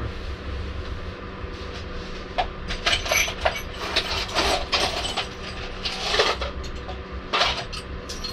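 Loose nuts and bolts being sorted through by hand: a series of sharp metallic clinks starting a couple of seconds in, over a steady low hum.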